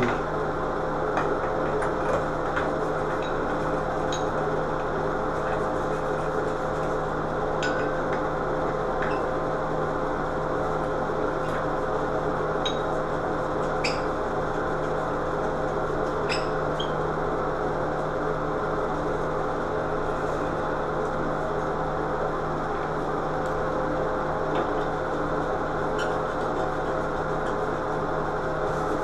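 Steady hum and rush of a ventilation fan, with a few faint clicks and taps from handling the vanity light fixture overhead.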